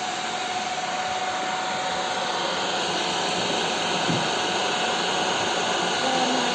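Grundig VCP 5030 cordless stick vacuum cleaner running steadily: a rush of air with a constant motor whine.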